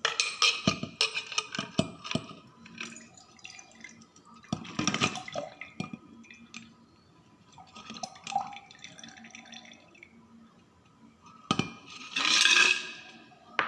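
Vodka and orange juice strained from a cocktail shaker into a glass, pouring and dripping, with ice cubes knocking and clinking inside the shaker. There is a run of clinks at the start and a louder rush of pouring near the end.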